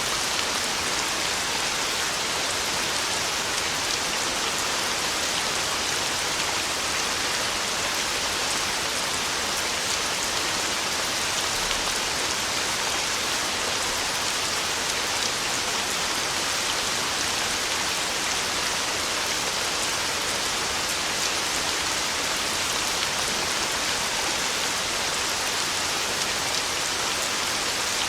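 Heavy rain pattering steadily on a tin roof, an even hiss of drops with no break and no thunder.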